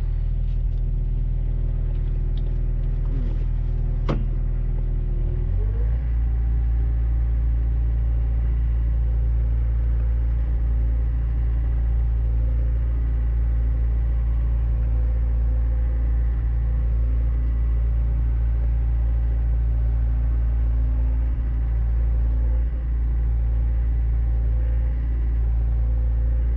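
Mini excavator's diesel engine running steadily, heard from the cab. A sharp click comes about four seconds in; just after it the engine note shifts and the low rumble deepens, then holds steady.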